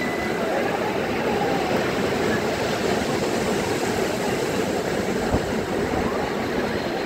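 Sea surf breaking and washing up a sandy beach: a steady rushing noise.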